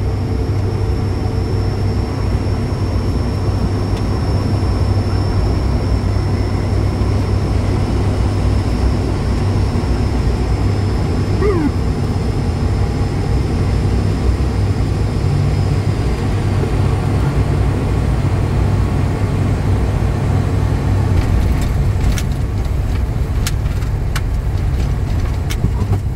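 Steady low drone of an ATR 72-500's twin turboprop engines and propellers heard inside the cockpit on final approach, with a thin high whine that fades out about two-thirds of the way through and a few sharp clicks near the end.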